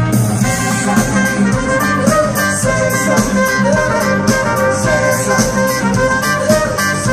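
A live rock band playing loud amplified music through a concert PA, heard from the audience, with a steady drum beat under the instruments.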